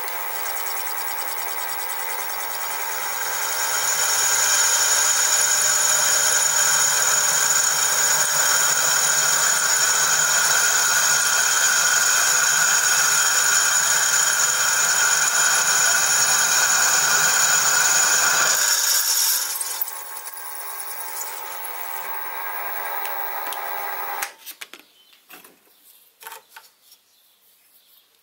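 Sieg SX2P mini mill's spindle motor running with a steady whine while a 4 mm drill bit is fed through the cast-iron bearing boss of the soleplate. It grows louder from about 4 seconds in until about 19 seconds, drops back, and the mill shuts off near the end, leaving a few light clicks.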